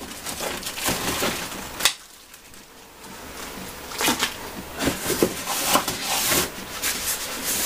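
Cardboard and paper packaging rustling and scraping as parts of a new upright vacuum cleaner are lifted out of their box compartments, with a few sharp knocks as pieces are handled and set down.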